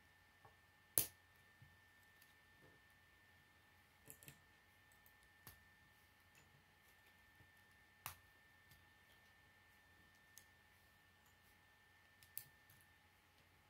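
K'nex plastic rods and connectors clicking as they are snapped together by hand: a handful of sharp, irregular clicks, the loudest about a second in.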